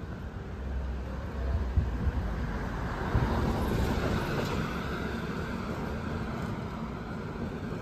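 A car passing close by, its engine and tyre noise swelling to a peak about three to four seconds in, then fading as it drives off down the street.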